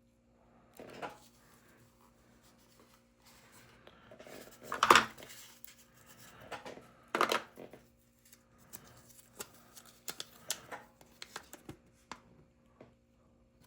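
Handling noise from small metal lighters and their packaging: scattered clicks and knocks, with two louder knocks about five and seven seconds in, over a faint steady hum.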